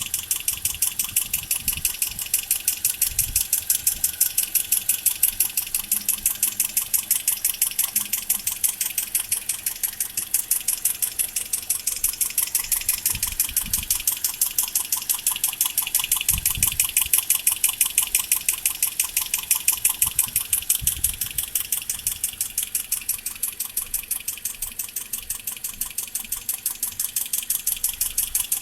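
2010 Toyota Corolla LE's 1.8-litre four-cylinder engine idling with a rapid, even ticking, several ticks a second, over the engine hum, with a few dull low bumps.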